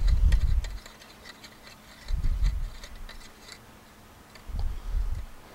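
A spark plug being threaded by hand into an aluminium cylinder head with a plug socket and extension: three low rubbing bursts about two and a half seconds apart, one for each turn, with light metallic ticks and clicks in between.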